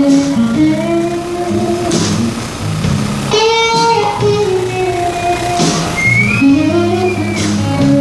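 A live band playing a slow song, with a Telecaster-style electric guitar taking a solo of long held notes that bend up in pitch over the bass and drums.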